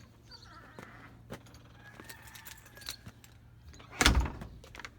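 Light clinks and rattles of metal objects being handled, with one heavy thump about four seconds in. A faint steady low hum runs underneath until the thump.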